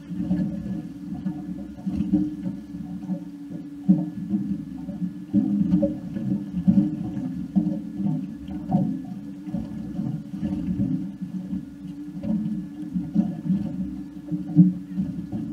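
Muffled, uneven low rumble of wind and sea water, heard through a sealed camera housing on a small fishing boat.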